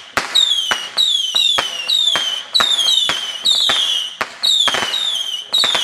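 A rapid volley of whistling fireworks, about two or three a second. Each one starts with a sharp crack followed by a shrill whistle that falls in pitch, and the whistles overlap.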